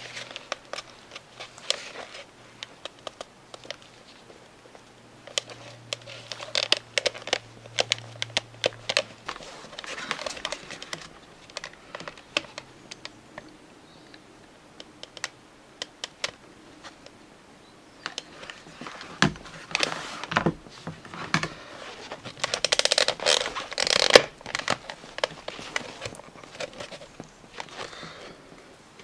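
Hands working on a plush toy's head: fur and fabric rustling against a plastic faceplate, with many small clicks and scrapes. A longer, louder stretch of rustling comes about three quarters of the way through.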